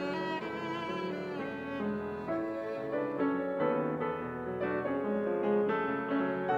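Violin and grand piano playing classical music together: the violin bows a line of sustained notes with vibrato over the piano's accompaniment.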